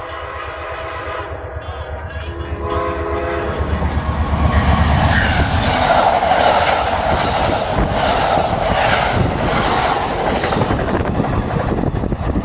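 Amtrak passenger train approaching and passing at speed: its GE Genesis P42DC diesel locomotive sounds its horn in a held chord that stops about three and a half seconds in. Then the locomotive and bilevel passenger cars go by close, a loud, steady run of wheel-on-rail noise with repeated clickety-clack clicks, easing slightly near the end as the train pulls away.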